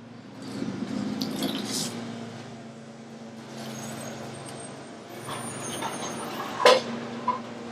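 Small petrol engine of outdoor lawn equipment running steadily, swelling about half a second in. Two sharp metallic clicks from tools sound near the end.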